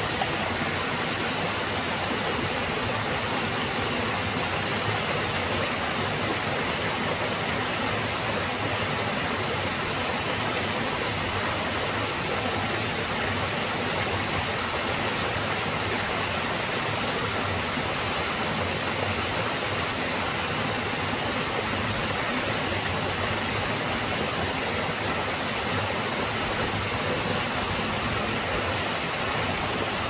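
Small mountain waterfall cascading over mossy boulders and splashing into a pool: a steady, full rush of falling water.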